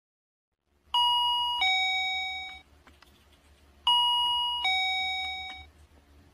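Two-note 'ding-dong' doorbell chime sounding twice, about three seconds apart: each time a higher ringing note drops to a lower one that fades away. A faint low hum lies underneath.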